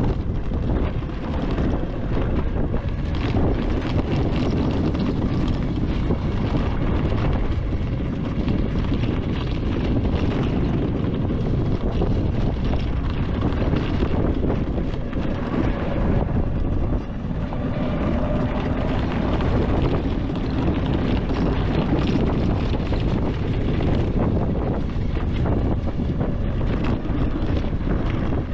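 Wind buffeting the microphone: a steady, loud low rumble without any engine note.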